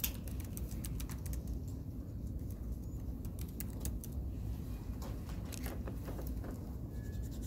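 Classroom room tone: a steady low hum with scattered faint clicks and taps.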